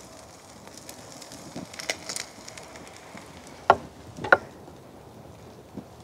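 Plating food with metal tongs and ceramic crockery: light clicks as the tongs set grilled ribs on a ceramic plate, then two sharp knocks, half a second apart a little past halfway, as the plate is put down on a wooden cutting board.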